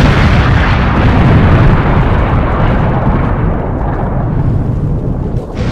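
Explosion sound effect: a loud rumbling blast that slowly fades, with a second burst near the end.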